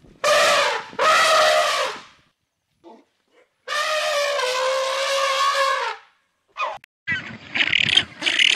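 An animal calling: two short calls in the first two seconds, then one long call of about two seconds in the middle. A different, noisy rustling sound begins near the end.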